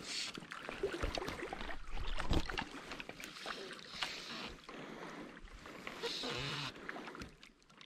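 Water sounds close to the microphone, with scattered clicks and handling rustles, as the angler works a fly rod and line in the water.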